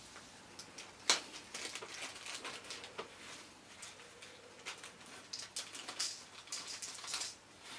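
Sequins and their small plastic packet being handled and sprinkled out: light rustling and small clicks and patter, with one sharper click about a second in.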